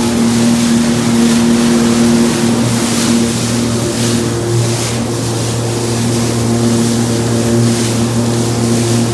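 Sea-Doo personal watercraft running at a steady speed: an even engine drone over the rushing hiss of water and wind.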